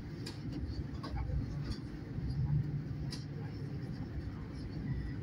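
Steady low rumble of a moving train heard from inside the carriage, with a few light clicks and rattles scattered through it.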